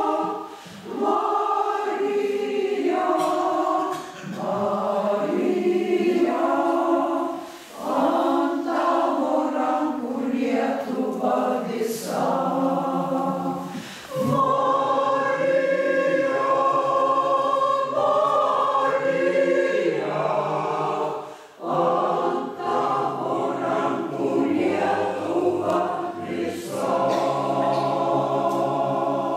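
Mixed choir of mostly women with a few men singing a hymn in parts, in long sung phrases with short breaks for breath between them.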